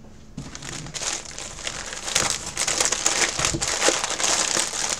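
Black plastic bubble-wrap mailer crinkling and rustling as it is handled and pulled open. The crackling starts about half a second in and grows louder and denser from about two seconds in.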